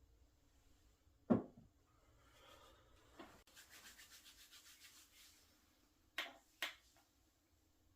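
Hands rubbing over the body in quick, even strokes during a massage, with a single sharp knock about a second in and two more sharp knocks close together near the end.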